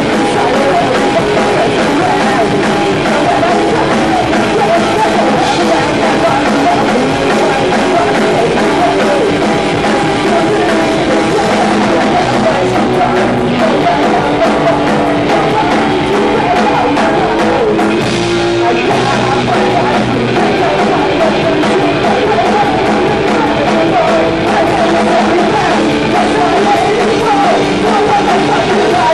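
Punk rock band playing live: electric guitar, bass and drum kit, with a man singing into the microphone.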